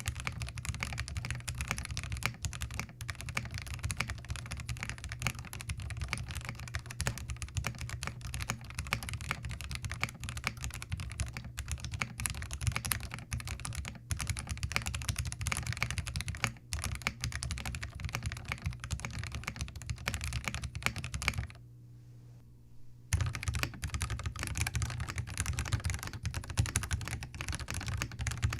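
Fast typing on a Zoom TKL mechanical keyboard fitted with Gateron Yellow linear switches: a dense, continuous stream of keystroke clacks, with a pause of about a second and a half roughly three quarters of the way through.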